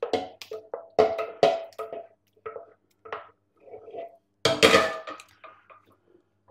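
Wooden spoon knocking and scraping against a steel saucepan as thick cheese sauce is emptied into a casserole dish: a run of sharp, ringing knocks. A louder clatter follows about four and a half seconds in.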